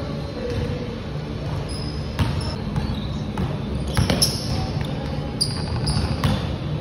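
Basketball bouncing on a wooden gym floor during one-on-one play, an irregular run of sharp thuds as the ball is dribbled, with short sneaker squeaks on the court, echoing in a large gym hall.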